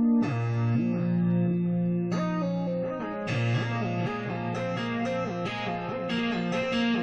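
Instrumental music led by guitar: plucked-string lines over sustained low bass notes, with the chords changing a few times.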